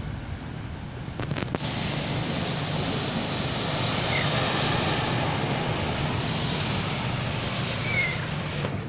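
Small waves washing over the stones and pebbles at the water's edge as a steady rush, with wind on the microphone. The rush grows louder after a couple of short knocks about a second and a half in.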